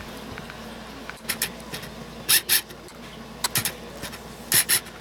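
Short crinkling rustles of toys and their packaging being handled, coming in quick pairs about once a second.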